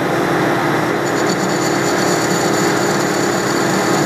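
Metal lathe running with its spindle turning an aluminum tube, a steady machine hum, while a high-speed-steel combination turn-face-chamfer tool bit is hand-fed into the tube's end for a facing cut. About a second in a thin high whine joins the hum as the tool starts cutting and throwing aluminum chips.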